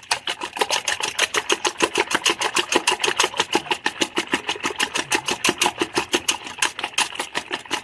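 Eggs and milk being beaten by hand in a bowl: a utensil clicks against the bowl in a fast, even rhythm of about eight strokes a second.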